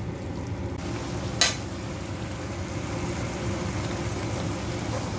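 Mixed vegetable curry sizzling steadily in a metal kadhai as its water is cooked off, with a single knock of a metal spatula on the pan about one and a half seconds in.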